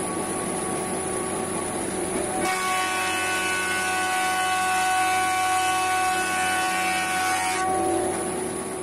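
Wood thickness planer running and cutting a board fed through it, a steady whine over the noise of the cutter head. Its sound changes character about two and a half seconds in and again near the end.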